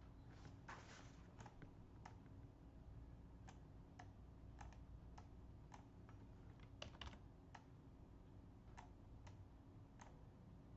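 Faint, irregular clicks of a computer mouse and keys being worked, about fifteen in all, over a low steady hum.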